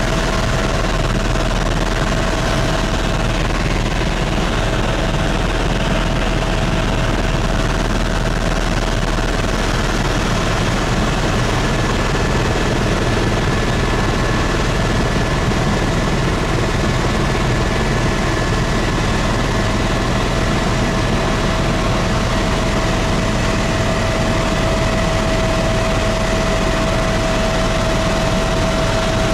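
Helicopter in flight, heard from inside the cabin: a steady drone of turbine engine and rotor with a constant whine running through it. A second, higher whine joins it for about ten seconds in the middle.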